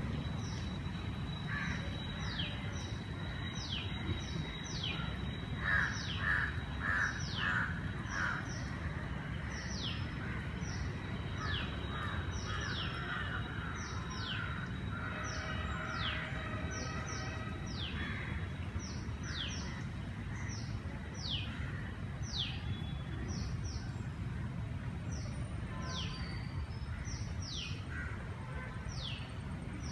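Birds calling: bursts of harsh, repeated caws and many short, falling whistled notes, over a steady low rumble.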